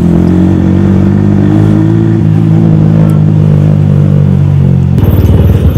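Yamaha R15 V3 motorcycle's single-cylinder engine running at a steady cruise, its pitch easing slightly down. About five seconds in it drops to a lower, pulsing beat as the throttle closes and the bike begins to slow.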